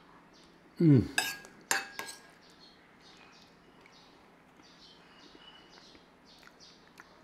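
A short falling hum from the eater about a second in, the loudest sound, followed by a metal spoon clinking three times against a bowl as trifle is scooped up, then only faint small clicks.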